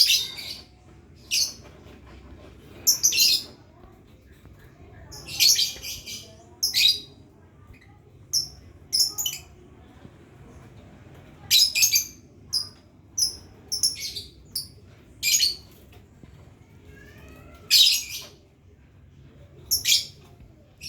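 Pet lovebird giving short, shrill, harsh chirps in separate bursts every second or so: a young bird practising the trilling 'ngekek' song.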